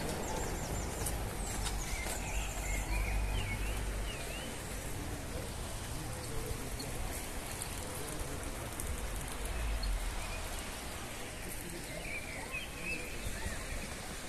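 Outdoor street ambience: a steady background hiss with a low rumble that swells and fades, and a few short chirps about two seconds in and again near the end.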